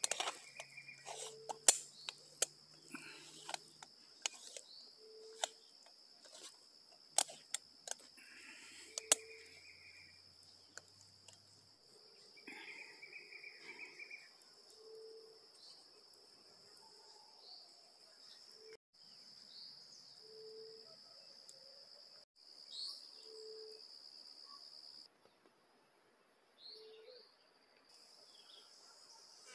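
Sharp metal clicks and knocks of a moka pot being screwed together and set on a metal grill over a campfire, mostly in the first ten seconds. Under them a steady high insect drone runs on, with a short low note repeating every second or two.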